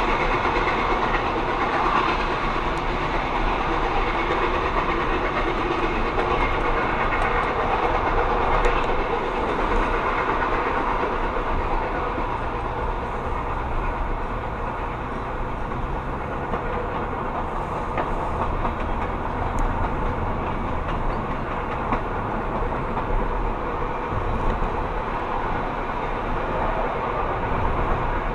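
A passenger train rolling along the track with a steady rumble, heard from a car driving alongside it, with the car's own road noise underneath.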